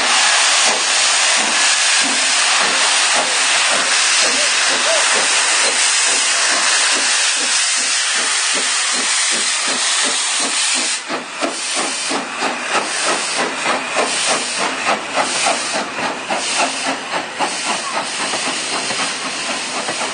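Steam locomotive No. 461, a 2-6-0, pulling away: a loud steady hiss of steam from the cylinders, then from about eleven seconds in a regular rhythm of exhaust chuffs as it gets under way.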